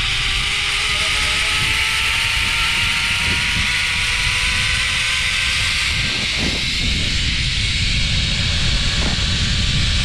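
Zipline trolley running fast along the steel cable, its pulley wheels giving a thin whine that rises slowly in pitch and fades about six seconds in, over a loud rush of wind on the microphone.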